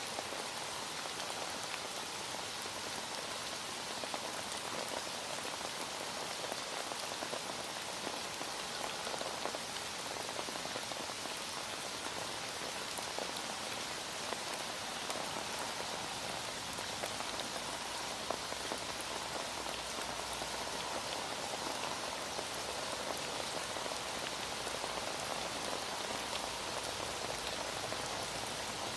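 Heavy rain falling steadily: a dense, even hiss of rain with many small drop ticks.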